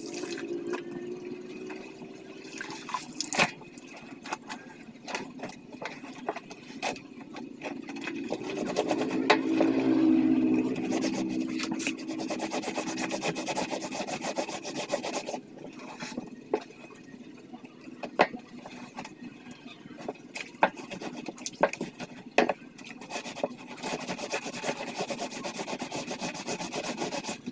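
Wet clothes being scrubbed by hand, cloth rubbed against cloth in irregular strokes with scattered sharp clicks and knocks. A low hum swells up about nine seconds in and fades by about twelve seconds.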